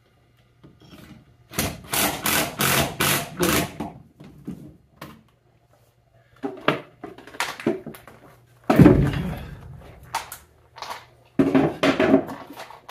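Bursts of scraping, rustling and knocking from hands-on work at basement ceiling joists while handling electrical cable, with one heavy thunk about nine seconds in. A low steady hum runs underneath.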